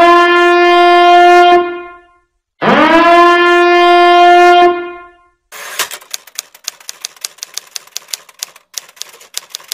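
Two long horn-like blasts, each sliding up into a held note for about two seconds, with a short gap between them. Then, from about five and a half seconds in, a fast, irregular clatter of typewriter key clicks: a typing sound effect.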